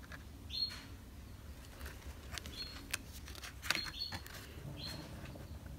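Faint handling of stiff oracle cards: soft taps and slides as one card is moved aside for the next. Short, high bird chirps come every second or two behind it.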